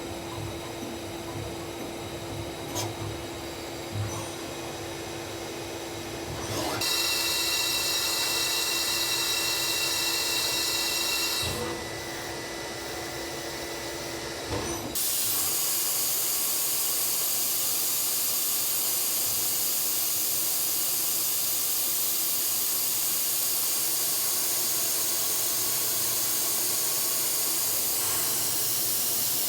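Citizen Cincom B16E CNC sliding head lathe running. A steady machine hum turns into a louder high whine for about five seconds, then a loud, steady hiss sets in about halfway through and runs on.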